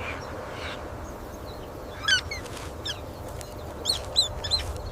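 Meerkat calls: short high chirps, a couple about two seconds in and three more in quick succession near the end, over a steady low background rumble.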